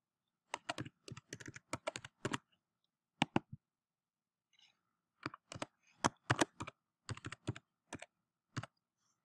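Computer keyboard being typed on in two runs of keystrokes: a short run of about eight keys, then after a pause of about two and a half seconds broken by two clicks, a longer run of about a dozen keys.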